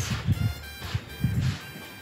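Background music with sustained melodic tones over a low pulse.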